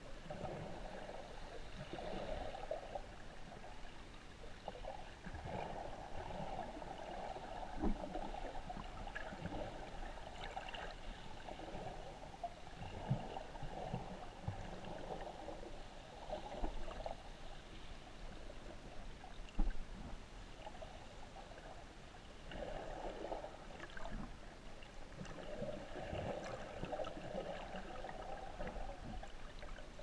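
Shallow sea water sloshing and gurgling around a camera held just under the surface, swelling and fading every few seconds with the wave surge, with a couple of brief knocks.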